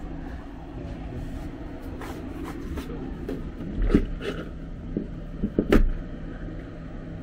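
Hands handling a Tesla Model S rear door and its frameless window glass: a few scattered knocks and taps, the loudest two thuds about four seconds in and near six seconds, over a steady low hum.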